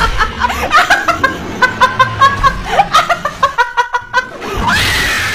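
A young woman laughing hard in rapid repeated bursts, ending in a longer drawn-out high squeal near the end.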